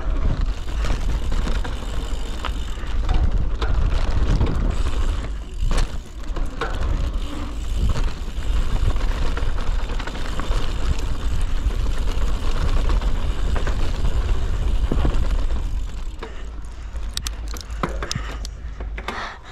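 Mountain bike riding down a dirt downhill trail: a steady rumble with scattered rattles and clicks from the bike. It grows quieter near the end.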